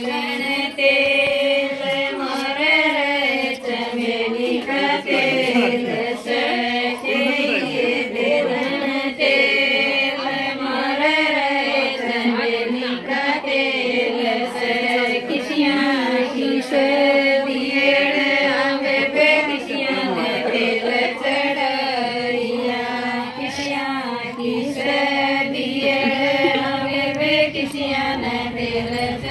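Group of women singing a traditional wedding folk song together, a steady melodic chant that carries on without pause.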